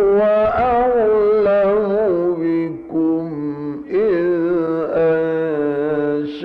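A man reciting the Quran in the melodic mujawwad style: one voice holding long, ornamented notes that bend and slide in pitch, broken by short pauses between phrases.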